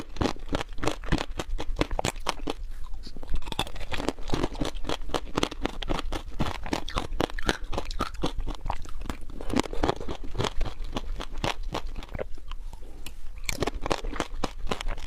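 Crunching and chewing of tanghulu: the hard candied-sugar shell on skewered strawberries and mandarin segments cracks in many quick, irregular crackles between the teeth, close to a clip-on microphone.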